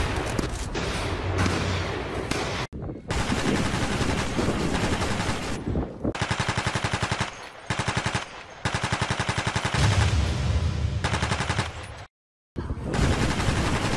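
Automatic gunfire sound effects in long rapid bursts, cutting off briefly near the end.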